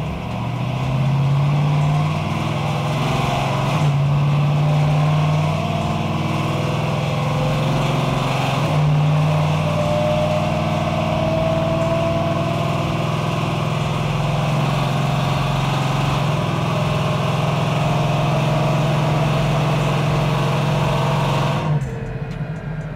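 Supercharged LS9 V8 in a third-gen Camaro pulling at part throttle on a chassis dyno, through 3-inch true dual exhaust with small single-chamber mufflers, super loud and close to open exhaust. The engine note is steady, with a few brief dips in pitch and a thin whine rising in pitch around the middle. It drops off near the end as the throttle closes.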